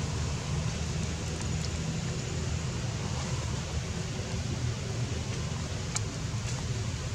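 Steady low rumble and hiss of outdoor background noise, with a faint click about six seconds in.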